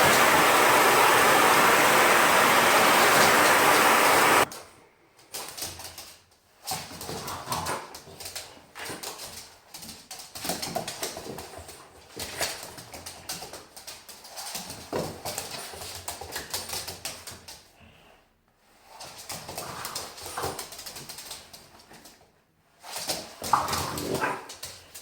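A vacuum cleaner runs with a loud, steady rushing noise that cuts off suddenly about four seconds in. Then a French bulldog whimpers and gives short, soft woofs on and off.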